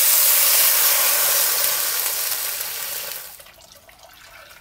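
Water poured from a glass jug into a stainless-steel wok of hot oil with fried ginger and swordfish, sizzling and splashing loudly at first. The hiss dies down about three seconds in, leaving a softer pour.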